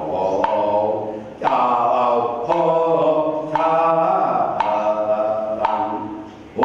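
Ritual chanting of Chinese liturgy, voices sustaining long pitched syllables in a steady chant, with a sharp percussion stroke keeping time about once a second.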